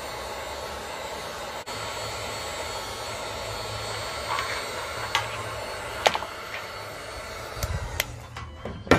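Handheld electric heat gun blowing steadily as it heats thin plastic to soften it for bending. The blower noise cuts out near the end, with a few sharp clicks along the way.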